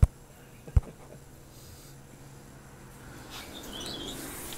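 Two dull thumps, one at the very start and another under a second later. Then a faint rising rustle with a brief high squeak about three and a half seconds in.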